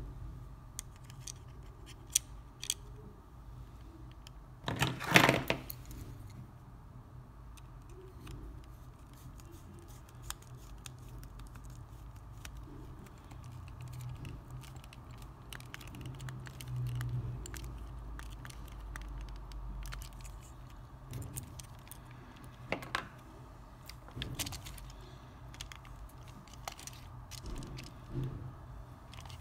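Small clicks and taps from the hard plastic housing of a disassembled PlayStation 4 controller and the small metal tools handled with it, with a louder rattling clatter about five seconds in and a few sharper clicks near the end.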